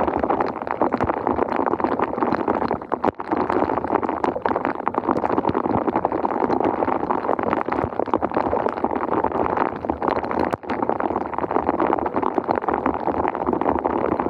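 Floodwater gurgling and churning steadily, water backed up by a sewer drain clogged with leaves and debris.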